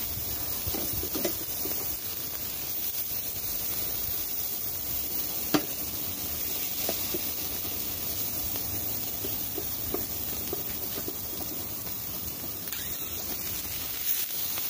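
Marinated lamb chops sizzling on a charcoal grill, a steady hiss as the meat's own fat cooks out, with a few light clicks as pieces are turned on the grate and one sharper click about halfway through.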